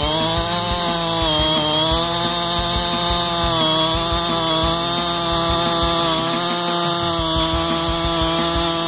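Stihl MS660 two-stroke chainsaw with its stock factory cylinder at full throttle, cutting through a large red oak log. The engine note holds steady with slight dips in pitch under load that recover several times.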